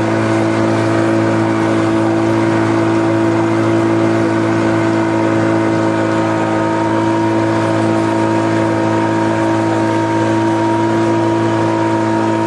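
Engine of a motorised pipe raft running steadily under way, one unchanging hum with several tones over a hiss.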